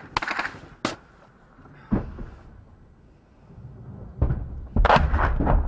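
Heavy explosion thuds, as from shelling: a sharp crack about a second in, a dull low thud about two seconds in, and a louder pair of heavy thuds near the end, each trailing into a rumble.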